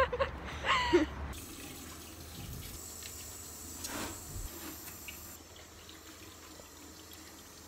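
Water running from a washbasin tap as hands are washed under it, a steady hiss beginning about a second in and lasting about four seconds.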